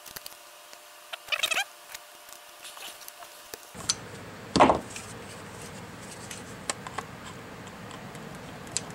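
Hands handling small parts and pliers on an RC truck's shock mount: scattered light clicks and rustles, with one louder knock about four and a half seconds in.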